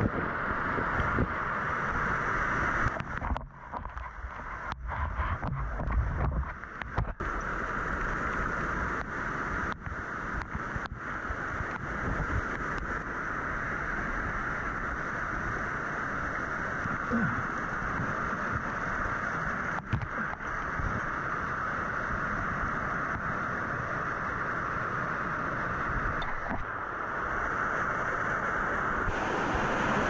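Steady rushing roar of a waterfall, with wind buffeting the microphone and a few knocks from handling.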